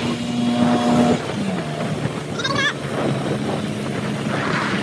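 Motor vehicle engine running steadily; its pitch drops about a second in and then holds lower. A brief warbling high-pitched sound comes near the middle.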